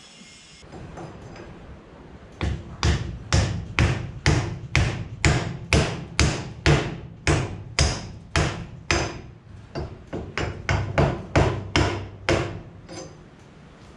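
Mallet blows on the end of a rebuilt wool-press hydraulic ram, struck steadily about twice a second for some ten seconds, knocking the ram's parts home in the cylinder. Quieter handling noise comes before the blows begin.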